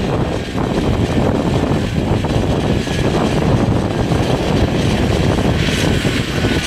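Steady aircraft noise from a parked Airbus A320-family jet airliner at the stand: a dense low rumble with a faint, even high whine above it.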